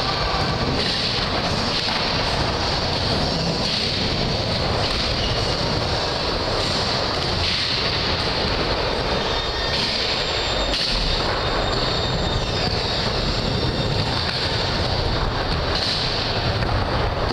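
Skateboard wheels rolling on a wooden mini ramp: a steady rumbling noise with a few faint knocks.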